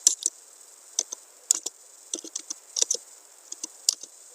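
Computer keyboard keys tapped in an irregular run of sharp clicks: typing.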